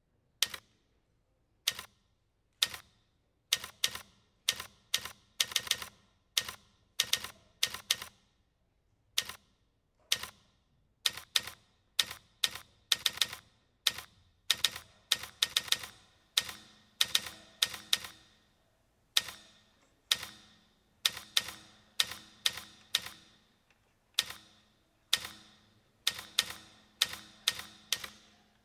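Typewriter keys clacking in irregular runs, single strokes and quick clusters, each with a short ringing tail, starting about half a second in. A faint low steady tone comes in under them about halfway through.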